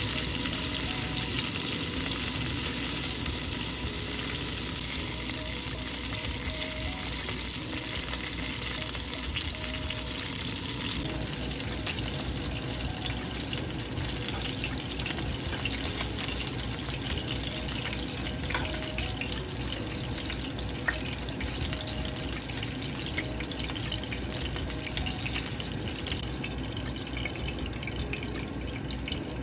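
Chicken pieces frying in oil in a pan: a steady sizzle that drops a little in level about a third of the way in, with a few light clicks.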